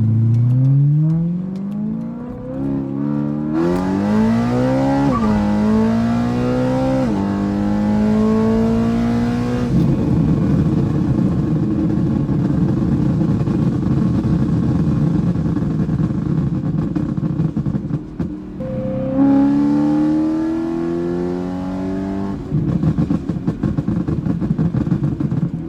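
2013 BMW M3's 4.0-litre V8, tuned and nearly straight-piped, pulling hard through the gears: the revs climb steeply, with sharp drops at upshifts about five and seven seconds in. Off throttle it crackles and pops on the overrun for several seconds, then climbs again briefly before crackling once more.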